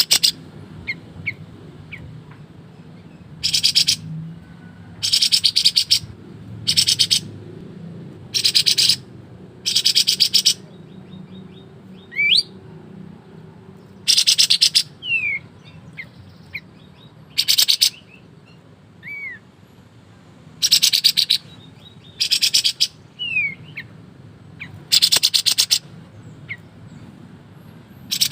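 White-shouldered triller (kapas tembak) calling in rapid rattling bursts, each under a second, repeated every second or two, with faint thin gliding whistles between them.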